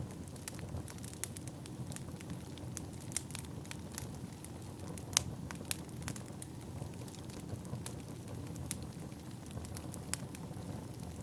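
Wood fire crackling: a steady low rumble of burning logs with scattered sharp pops and snaps, one louder pop about five seconds in.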